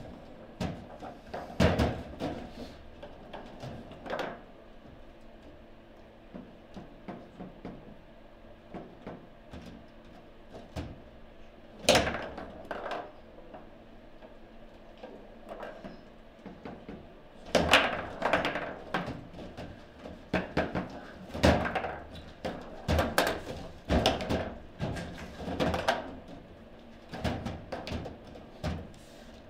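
Table football in play: irregular sharp knocks and clacks as the ball is struck by the figures and bangs around the table, with a few hard shots much louder than the lighter taps.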